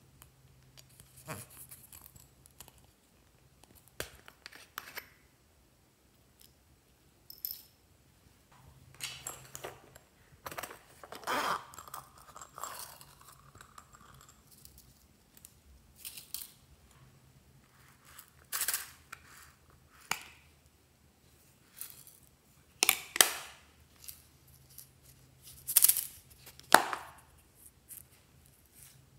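Small plastic containers being handled and opened, and sequins tipped into a glass dish: irregular clicks, taps and rustles, with a few louder clatters in the last several seconds.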